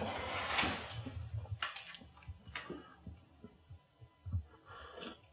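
Quiet handling sounds and soft knocks at a dining table, then a few low gulps as a man swallows from a glass of juice and sparkling water near the end.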